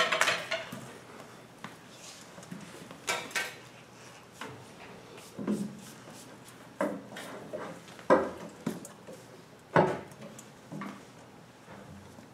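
A dozen or so brief, irregular knocks, shuffles and rustles of people moving about and handling things in a small room.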